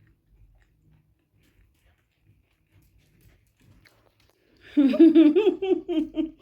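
Faint chewing, then about three-quarters of the way in a loud burst of a person laughing, the pitch wavering quickly up and down.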